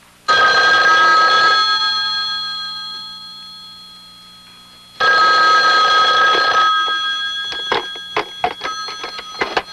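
Telephone bell ringing twice, each ring lasting about a second and a half and fading away slowly. A run of sharp clicks and knocks follows near the end.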